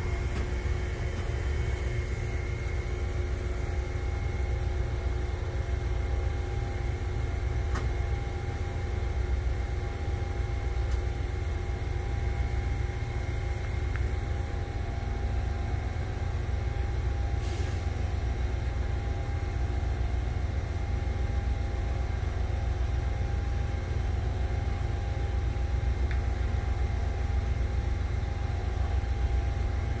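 Freight train's diesel locomotives running, a steady low rumble with a steady hum over it and a few faint clicks.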